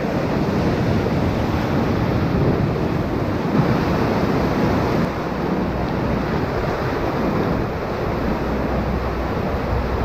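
Whitewater rapid rushing and churning close around an inflatable raft: a steady, loud noise of turbulent river water.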